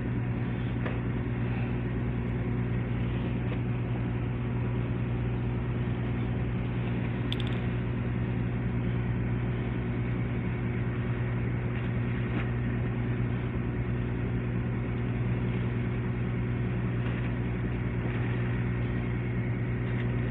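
Steady low engine drone, an even hum that holds unchanged throughout.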